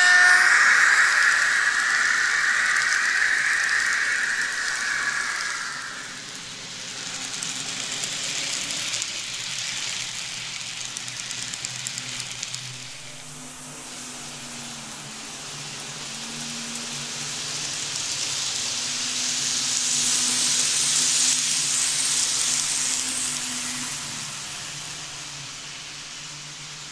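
N gauge model trains running: a whirr of motor and wheels on the rails as a train passes close, loudest in the first few seconds. After that comes a steady hiss with a low motor hum that dips and rises in pitch as trains run further off.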